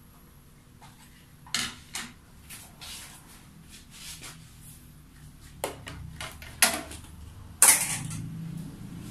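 Kitchen items being handled: a few scattered, irregular knocks and clatters of containers and utensils, the loudest near the end.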